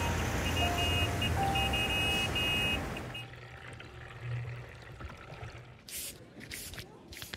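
Busy city ambience: a steady wash of traffic noise with short high beeps. After about three seconds it drops away to a quiet bed with a few short hisses near the end.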